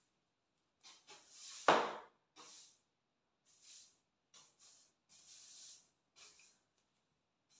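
A run of short swishing rubs, like cloth or a hand wiping a surface during house cleaning, with one sharp knock about two seconds in.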